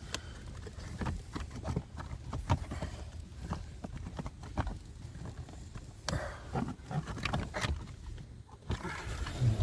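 Irregular knocks, clicks and scraping of plastic dashboard trim and housing being handled and worked loose.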